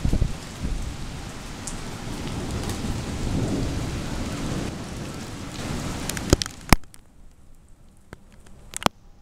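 Heavy rain pouring steadily, with thunder rumbling and swelling about three seconds in. A few sharp clicks come a little past six seconds in, and after them the rain sound drops much quieter, with a couple more clicks near the end.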